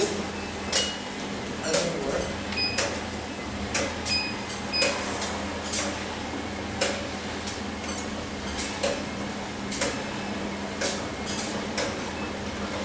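Gym exercise machines being handled and worked: irregular clicks and knocks, a few short high electronic beeps, over a steady hum.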